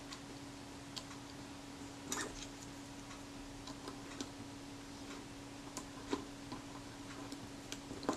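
Faint, irregular small metal clicks and ticks as a retainer ring is worked into place on a Kodak Retina IIIc lens shutter, over a steady low hum.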